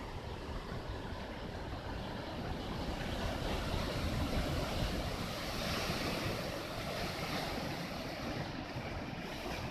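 Typhoon wind and rough surf: a steady rushing noise that swells and then eases around the middle, with ragged low buffeting of wind on the microphone.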